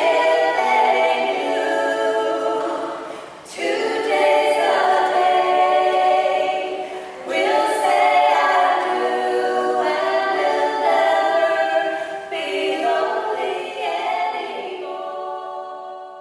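Choir singing a cappella in slow, held chords, phrase after phrase, the last chord held and fading away near the end.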